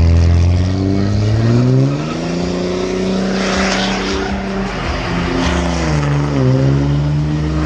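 Ram pickup truck's engine held at high revs through a burnout, its rear tyres spinning on the asphalt. The engine pitch climbs about two seconds in, holds, dips briefly about six seconds in and climbs again.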